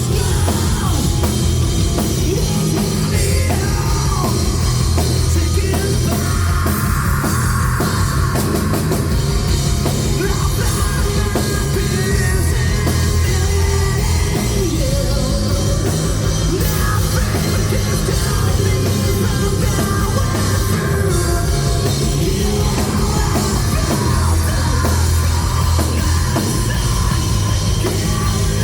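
An alternative metal band playing live, loud and dense, with a drum kit driving a steady beat under heavy band instrumentation.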